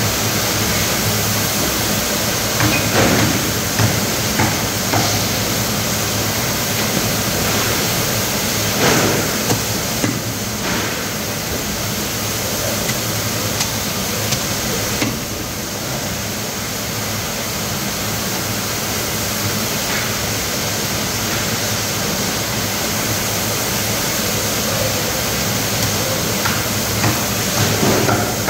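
Steel cleaver chopping a threadfin into steaks on a wooden chopping block: occasional dull knocks, with a cluster near the end, over a steady loud hiss.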